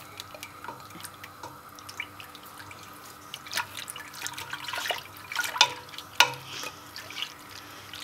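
Milk sloshing and splashing in a stainless steel pot as a silicone whisk stirs condensed milk into it, with a few light knocks against the pot. The stirring is faint at first and grows busier from about halfway through.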